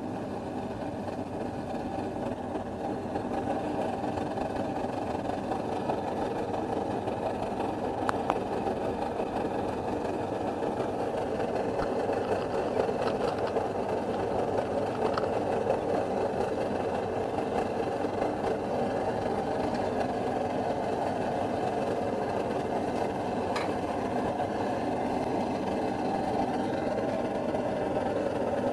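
MSR DragonFly liquid-fuel stove burning, a steady rushing burner noise that grows louder over the first few seconds and then holds. A few light clinks sound over it.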